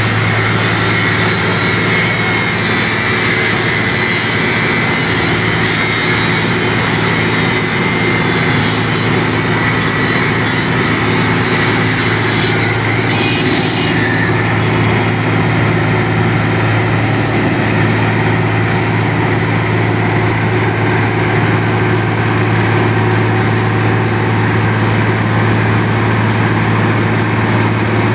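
Heavy road-construction machinery with its diesel engine running steadily, a constant loud, low drone.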